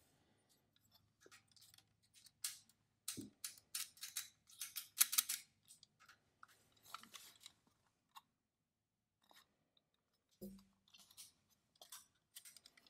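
Handling noise of a bare Brunsviga Nova 10 mechanical calculator mechanism turned over in the hands: quiet scratchy clicks and rustles of metal parts and skin on the frame, densest in the middle, with soft bumps about three seconds in and again about ten seconds in.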